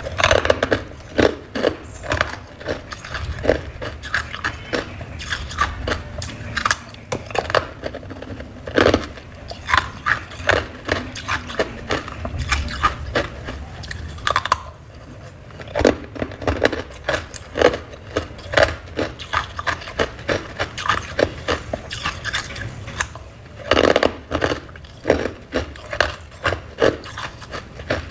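Crunchy freezer frost being bitten and chewed: a fast, irregular run of crisp crunches with some scraping in between.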